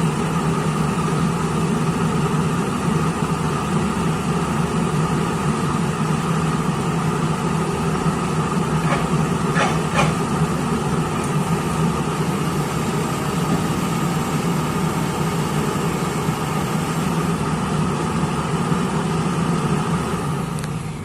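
A heavy diesel engine running steadily at low, even revs.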